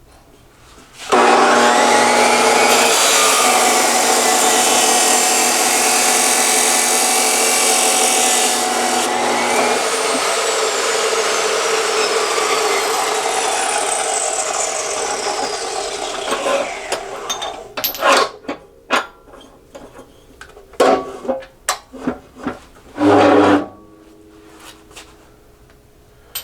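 Chop saw starting up and cutting through an aluminum spacer for several seconds. The blade then spins down with a falling whine after the cut. Afterwards come a series of knocks and clatter as the pieces are handled, with one brief louder noise near the end.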